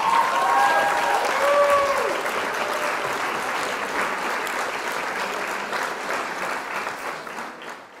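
Crowd applauding, with a few rising and falling cheers in the first couple of seconds; the clapping fades out near the end.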